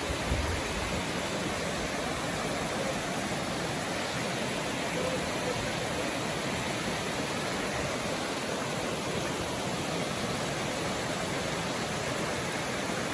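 Shallow forest stream rushing steadily over a smooth rock ledge in a small cascade.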